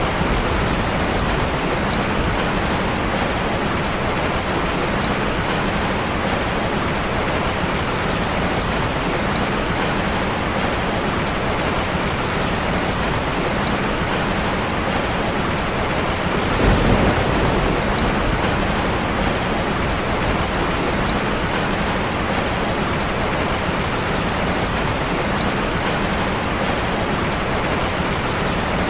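Steady heavy rain, with a brief low rumble about two-thirds of the way through.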